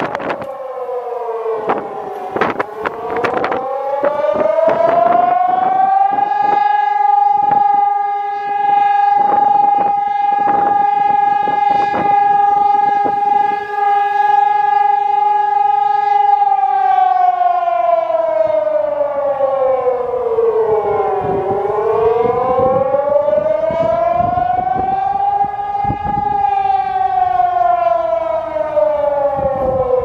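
Civil defense air raid siren on a police-station tower, wailing. Its pitch sinks and climbs, holds one steady high tone for about ten seconds, then falls, rises again and sinks near the end.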